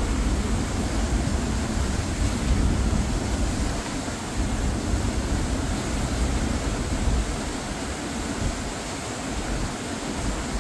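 Steady rush of churning spillway rapids, with a gusty low rumble of wind on the microphone.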